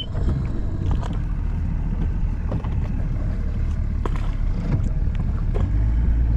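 Boat motor running at low speed as the boat is backed up, a steady low rumble with scattered light knocks and clicks on top.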